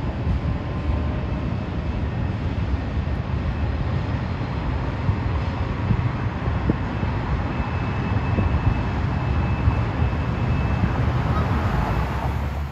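Steady low rumble of a train crossing a steel truss railroad bridge, heard from across the river.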